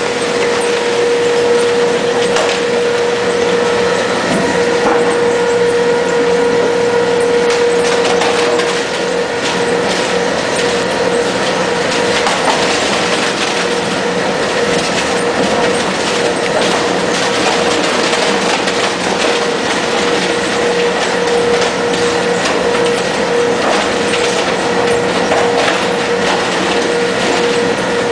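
Polystyrene recycling machine running: a steady machine hum with a constant mid-pitched tone, overlaid by dense, irregular crackling as the foam is crushed.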